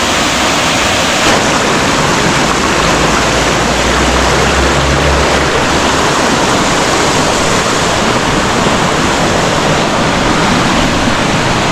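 Shallow river water rushing and splashing over boulders close by, a loud, steady rush.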